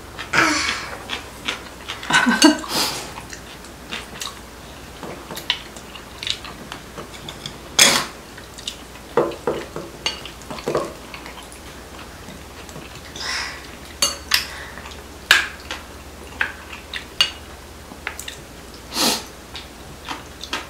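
Chopsticks and spoons clinking and tapping against ceramic bowls and plates during a meal, in irregular, scattered clicks with a few louder knocks.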